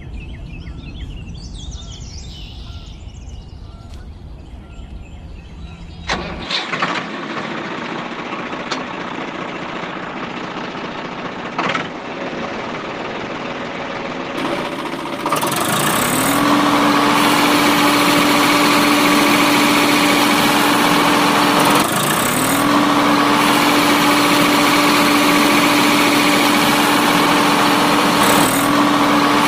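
Small DC electric motor and gear drive of a homemade toy tractor whirring under load. The whirr starts about halfway through with a rising pitch as it spins up. It breaks off briefly twice near the end and winds up again each time. The tractor and its loaded trailer are stuck in mud.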